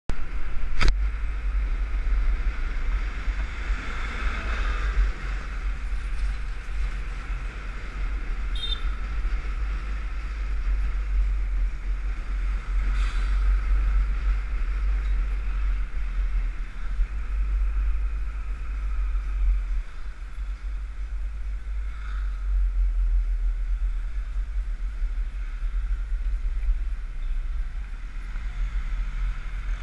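Motorcycle on the move: steady low wind rumble on the microphone over the engine and road noise, with a single sharp click about a second in.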